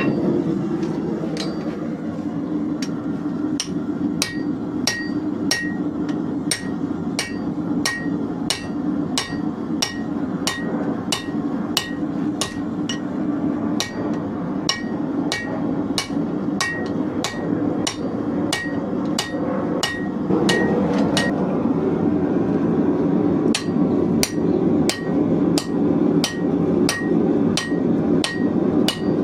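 Hand hammer forging hot leaf-spring steel on an anvil: steady blows about two a second, each with a short metallic ring. A steady low drone runs underneath. The hammering pauses briefly about two-thirds of the way through, then carries on.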